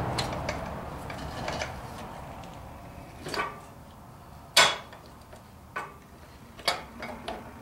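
Scattered metallic clicks and knocks as the old clutch throw-out bearing is worked off the clutch fork inside the bellhousing; the loudest knock comes about four and a half seconds in.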